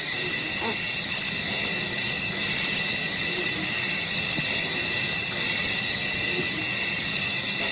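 Steady chorus of insects in the bush, several high pitches held without a break, over a faint even hiss.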